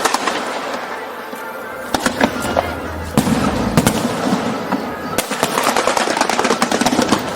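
Aerial fireworks exploding: a few separate booming bursts, then a quick run of crackling pops, with music playing underneath.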